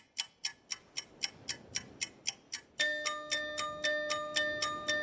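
Intro music: a steady ticking beat at about four ticks a second, joined about three seconds in by held bell-like tones.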